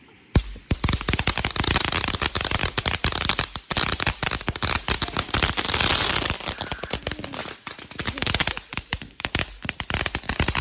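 A firework going off, starting suddenly about half a second in and then crackling with a dense, rapid run of sharp pops.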